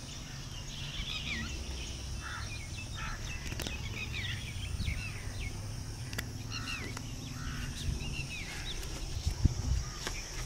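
Small birds chirping over and over, short quick calls that often slide downward in pitch, over a steady low rumble and a thin high hiss of outdoor background.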